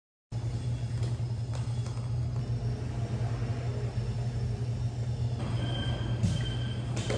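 Steady low mechanical hum and rumble. Faint high steady tones join it about two thirds of the way through.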